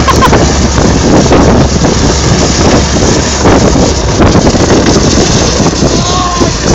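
Heavy wind noise rushing over the microphone with a steady low vehicle drone underneath, from a sled being towed at about 40 km/h along a snowy street.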